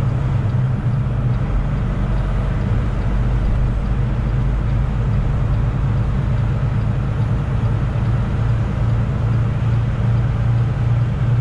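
Semi truck's diesel engine droning steadily at highway speed, with tyre and road noise heard from inside the cab.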